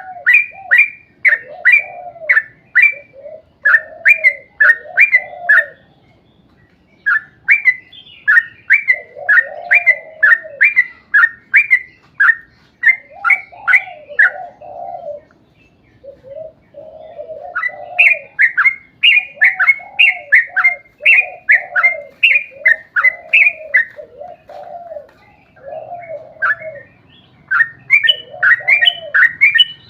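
Yellow-vented bulbul (trucukan) singing long, rapid chattering phrases: quick chirps several times a second over lower bubbling notes, with short breaks between phrases.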